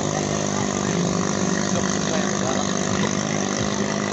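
Small 6.5 hp longtail racing-boat engine running, a steady drone that holds its pitch throughout.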